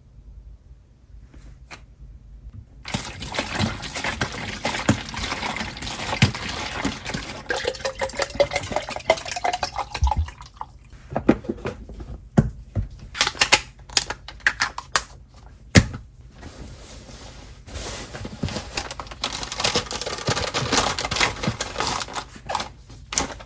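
Water running into a container, its pitch rising as it fills, then several sharp knocks and clatter of kitchenware before the water runs again.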